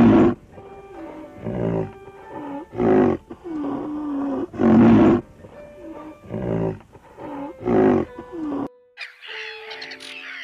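A rhinoceros giving a series of about six loud, low calls, roughly one every one and a half seconds, over background music. Near the end the calls stop and higher bird calls take over.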